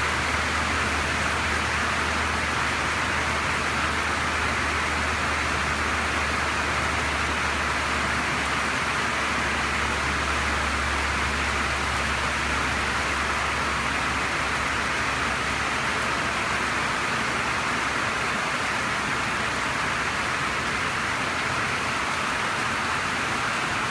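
Heavy spring rain pouring down steadily, a dense even hiss of rain on the carport roof and the ground around it.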